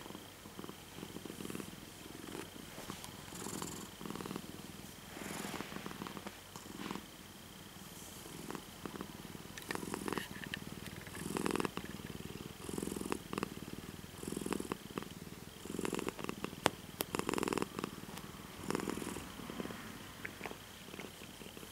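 Domestic cat purring close by, rising and falling in regular swells.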